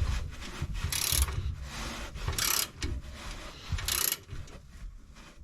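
Hand ratchet tightening a nut on a Ford 9-inch differential center-section stud, its pawl clicking in short bursts on the return strokes about every second and a half, with light knocks of the tool against the housing.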